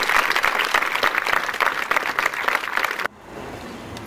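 Crowd applauding, many hands clapping together. It cuts off abruptly about three seconds in.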